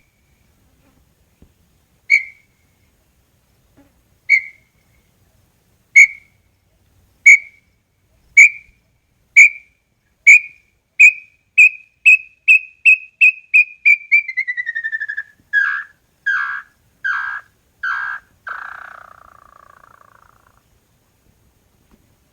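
Small-billed tinamou (inhambu-chororó) singing its full song: clear whistled notes, widely spaced at first, then coming faster and faster. The run slides down in pitch and ends in a few lower, rougher notes that fade away.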